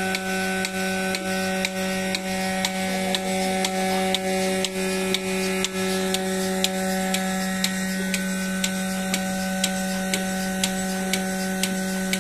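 Portable milking machine running on a cow: a steady motor hum from the vacuum pump, with regular sharp clicks about three a second from the pulsator.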